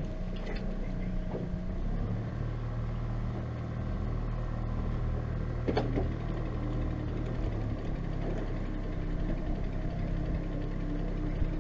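Boat outboard motor running steadily at low trolling speed, a low hum that shifts pitch about two seconds in and again near eight seconds. A single sharp knock is heard about six seconds in.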